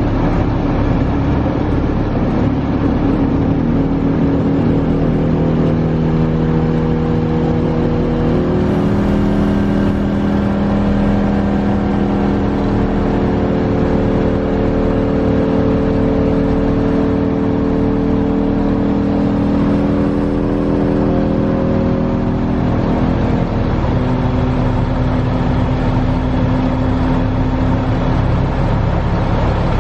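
Caterpillar 3126 inline-six diesel in a Freightliner FL70 truck running steadily. Its speed is raised in two steps, about six and eight seconds in, held there, and brought back down about twenty-two to twenty-four seconds in.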